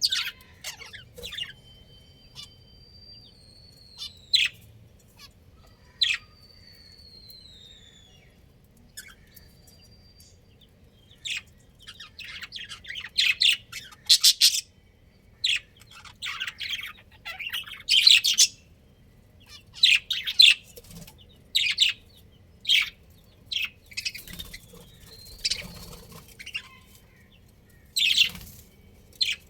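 Budgerigars chirping and chattering in short, high calls with a few drawn-out whistles. The calls are scattered at first, then come thick and fast in the middle before thinning out again.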